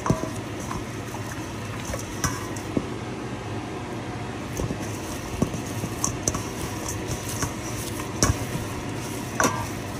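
Hand rubbing a wet herb-and-spice marinade into raw chicken breast in a stainless steel bowl: irregular soft squelches and light taps against the metal, over a steady background hum.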